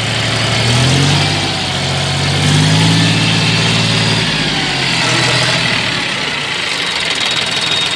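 John Deere 5105 tractor's three-cylinder diesel engine running after start-up, its note rising about a second in and settling back toward idle around the middle.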